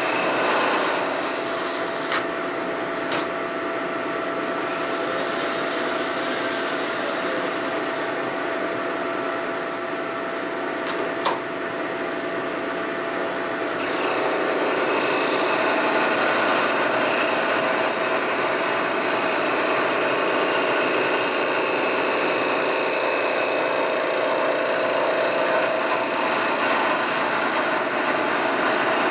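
Lagun vertical milling machine cutting a Harley-Davidson panhead's aluminium engine case: a steady scraping cutting noise with a spindle whine. A few sharp ticks come in the first half, and about 14 seconds in the cut grows louder and brighter.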